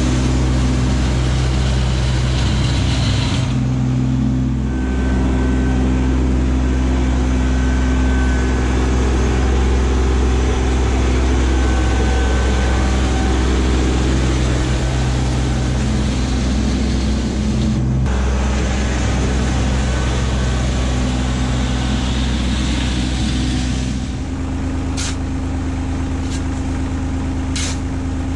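Kubota LX2610 compact tractor's three-cylinder diesel engine running steadily. Near the end a few short, sharp scrapes sound over the engine, fitting a shovel in gravel.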